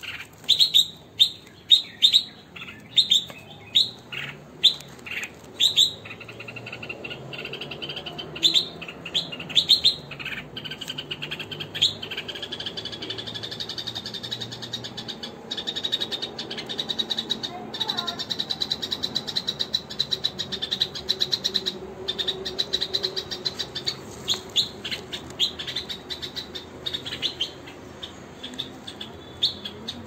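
Birds chirping: a string of short, sharp high chirps, one or two a second, over the first several seconds. These give way to a fast, dense chatter of tiny chirps, with a thin steady high note behind it for a while around the middle.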